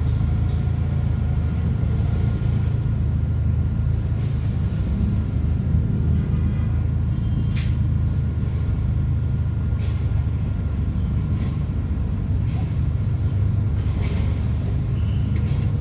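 An old vehicle's engine running with a steady low rumble. One sharp click comes about halfway through.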